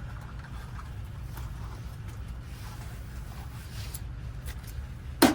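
Small lock parts and tools being handled while a door lock cylinder is rekeyed: faint light clicks over a steady low hum, with one sharp click about five seconds in.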